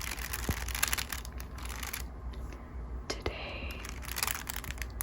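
Crinkle paper crinkling close to the microphone in two bursts of crisp crackles: one over the first two seconds and another near the end.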